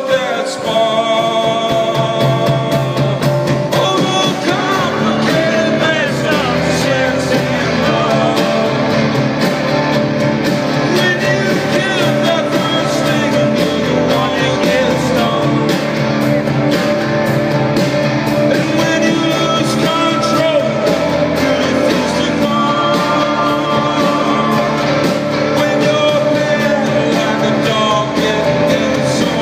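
Live solo nylon-string classical guitar played through the stage sound system, with a man singing over it.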